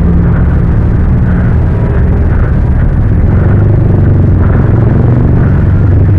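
A loud, steady low rumble with a low hum running under it, as heard through a small camera's microphone moving along a busy city road.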